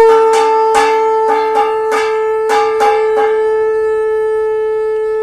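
Conch shell (shankha) blown in one long, steady, loud note for a puja. The note starts just a touch higher and settles, and it is accompanied for the first three seconds by a run of sharp plucked notes, about two or three a second.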